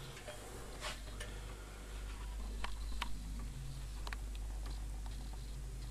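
A few light, scattered clicks and taps from a plastic multimeter being set down and positioned, over a steady low hum.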